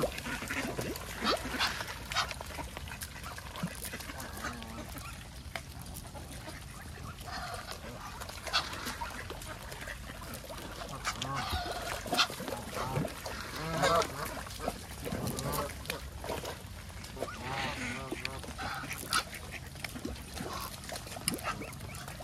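Geese honking on and off, several birds calling over one another, with duck calls mixed in; the calls come thickest and loudest a little past halfway.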